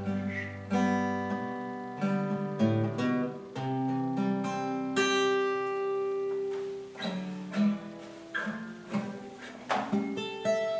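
Acoustic guitar playing the closing bars of a song with no singing: a few strummed chords left to ring, then softer single notes and light plucks dying away.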